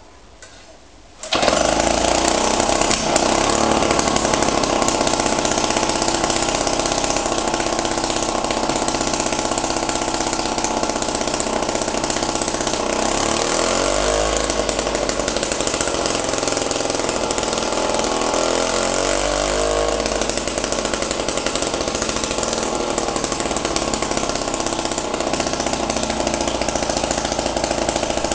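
Clinton VS-200 two-stroke vertical-shaft lawnmower engine catching about a second in and then running steadily, its speed wavering twice.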